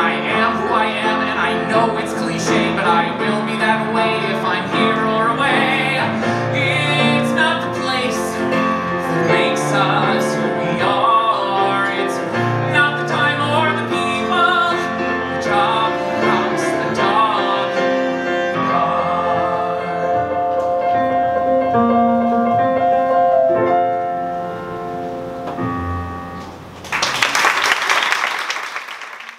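A man singing the close of a cabaret song with piano and cello, holding one long note before the music fades out. Audience applause breaks out near the end.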